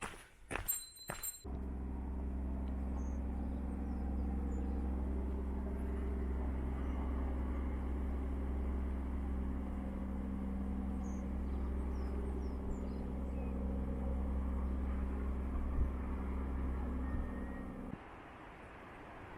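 A vehicle engine running with a steady low hum, after a few sharp clicks at the start; it cuts off suddenly near the end.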